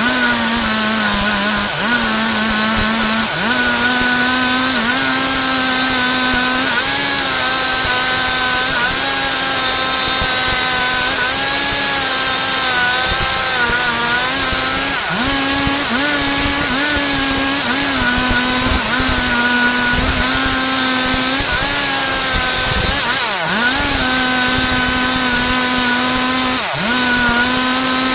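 Stihl MS 382 two-stroke chainsaw running at high throttle while cutting wood. Its steady whine dips in pitch briefly several times as the cut loads the engine.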